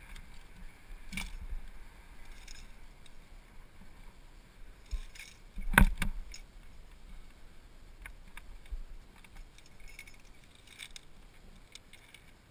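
Metal climbing gear clinking: carabiners and a quickdraw rattle in short, scattered clicks as the protection is unclipped and worked out of the rock. One sharp clack comes about halfway through.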